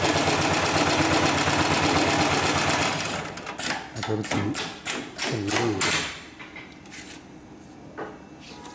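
Hightex 7273PLK heavy-duty pattern sewing machine stitching thick webbing at speed, a loud steady rapid needle chatter. It stops about three seconds in, followed by a series of clicks and clunks as the machine ends its sewing cycle.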